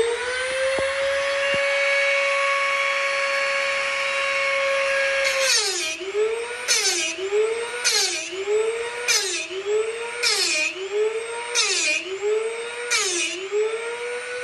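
Dremel rotary tool on a Norwood Lumbermate 2000 bandsaw blade sharpener whining steadily at full speed with its aluminum oxide grinding stone. About five seconds in it starts grinding the blade's teeth one after another: about once a second the motor's pitch dips under load and a burst of grinding comes, about eight times.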